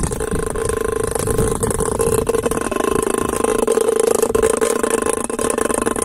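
Steady, loud rattling buzz of a small electric vibration motor shaking a metal tin can, a homemade mole, snake and bird repeller running on the ground.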